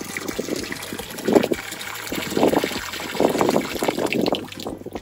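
Hand-operated bilge pump being worked by its handle, with water spurting and splashing from its hose into the sea in uneven surges with the strokes: the pump is drawing water, so it works.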